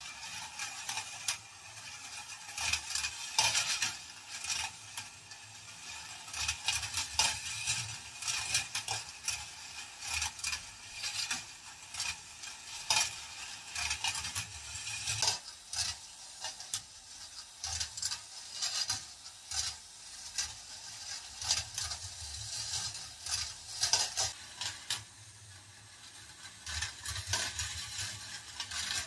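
10 mm steel balls rolling along the copper-wire tracks of a marble machine: a steady metallic rolling rattle broken by many sharp clicks and clinks.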